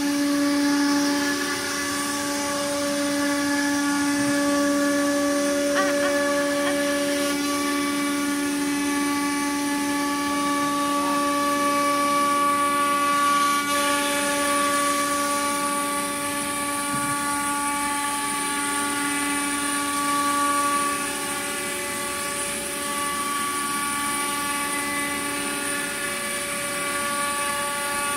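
CNC router spindle whining steadily at high speed as the nesting machine cuts a wood panel. Several held tones sit over a steady hiss.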